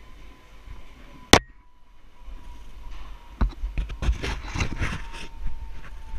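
Handling noise on an action camera: a single sharp click a little over a second in, then from about halfway a run of knocks and rubbing as a hand moves over and in front of the camera.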